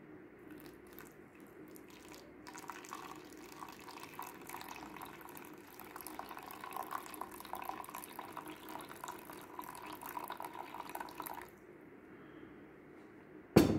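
Water poured from a glass jar into a paper coffee filter in a funnel, trickling and splashing through into the bottle beneath for about nine seconds, starting a couple of seconds in; the water washes the agar mixture through the filter. A sharp knock near the end.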